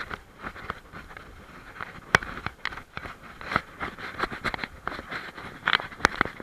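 Irregular clicks, knocks and scrapes, several a second, from a German Shepherd walking over a stony path, picked up close by a camera strapped to its head. A sharper knock comes about two seconds in, and a cluster of them near the end.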